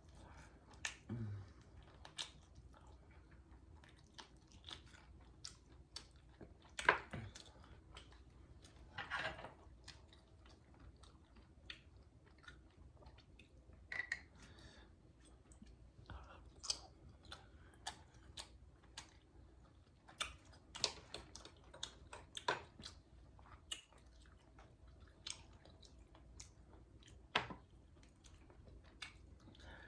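Close-up chewing and biting on crispy fried chicken wings, with scattered short crunches and mouth clicks.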